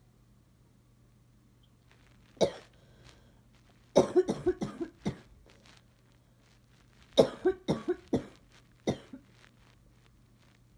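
A girl coughing in fits: a single cough, then a quick run of about six coughs, another run of about five, and one last cough. She wonders whether the cough comes from allergies.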